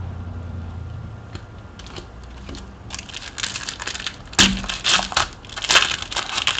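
Foil wrapper of a Panini Prizm trading-card pack being torn open by hand. It crinkles and crackles densely from about three seconds in, with the sharpest rips about four and a half and six seconds in.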